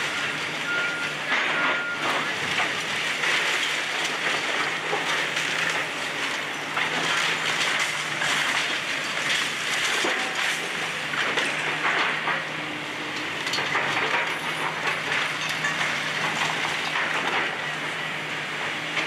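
Demolition excavators tearing down a brick building: a diesel engine running steadily under a continuous crunch and clatter of breaking masonry and wood. Two short beeps sound about a second in.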